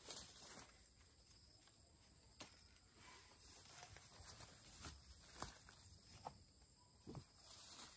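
Faint outdoor ambience: a steady high-pitched insect trill with scattered light rustles and clicks.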